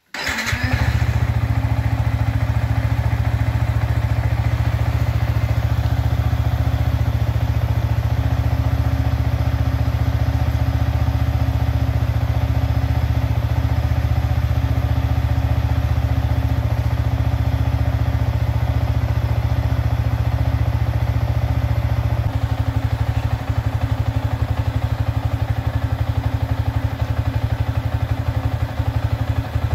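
Yamaha MT15's single-cylinder engine starting and then idling steadily. The running note shifts slightly about three-quarters of the way through.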